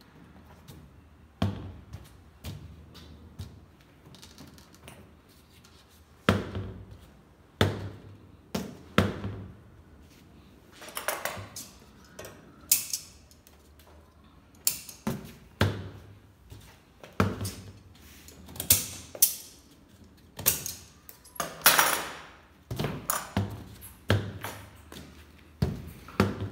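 Scissors snipping corrugated cardboard while the cardboard is handled and laid against the rim of a clear plastic container: irregular clicks, snips and taps, with a few longer scraping rustles.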